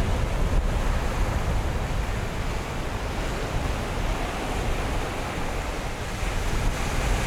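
Steady wash of ocean surf at the shoreline, with wind rumbling on the microphone.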